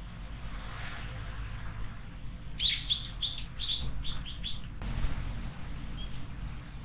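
A wild bird calling: a quick run of about eight short, high, down-slurred chirps lasting about two seconds, followed by a single sharp click.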